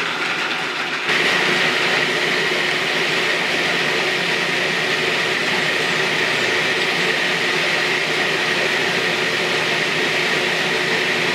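Food processor running steadily, grinding soaked-and-dehydrated almonds into a coarse meal. It gets louder and brighter about a second in.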